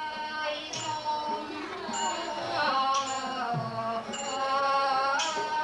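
Thai piphat ensemble playing puppet-show accompaniment: a long, wavering melody line over regular percussion strikes about once a second, some with a bright metallic ring.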